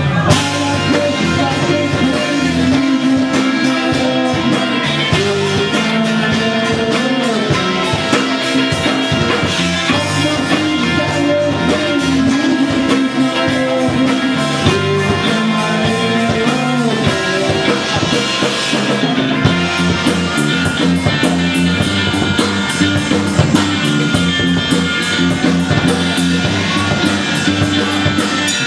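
Rock music with electric guitar, drum kit and singing, with a steady beat.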